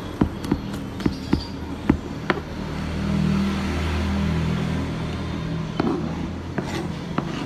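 Kitchen knife chopping garlic on a cutting board: a few irregular sharp knocks in the first couple of seconds and a few more near the end. A low steady drone rises under them in the middle.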